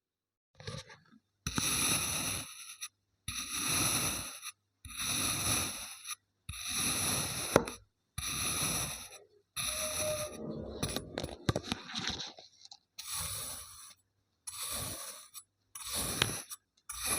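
Kinetic sand being sliced and scraped with a knife: about ten separate gritty strokes, each a second or so long, with short silences between.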